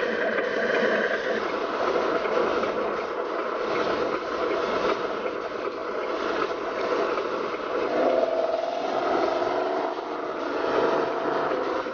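RC Scania 8x4 recovery truck running, a steady engine-like drone with no deep bass. About eight seconds in a steadier whine sets in as the truck moves off.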